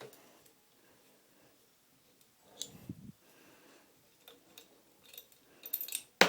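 Mosin-Nagant rifle parts being handled during disassembly: scattered metal clicks and scrapes, with a louder clack just before the end.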